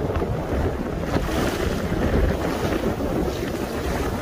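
Strong wind buffeting the microphone over a choppy sea, with waves washing along a fishing boat's hull.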